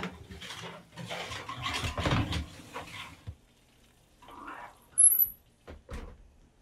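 Metal sheet pan clattering and scraping as it is slid onto the oven rack, then the oven door shutting with a sharp clunk about five seconds in, followed by a couple of small clicks.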